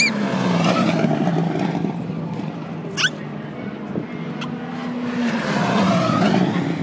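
Racing touring cars passing on the straight one after another, each engine's pitch dropping as it goes by. The first pass is near the start and the second is loudest around six seconds in. Short high squeals come at the very start and about three seconds in.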